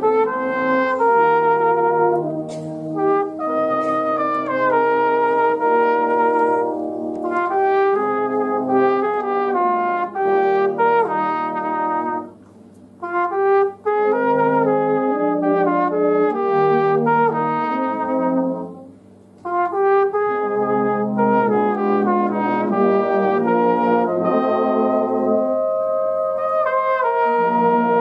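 Brass band playing, a flugelhorn solo line over the band's sustained chords. The music breaks off briefly twice, around the middle and again about two-thirds of the way through.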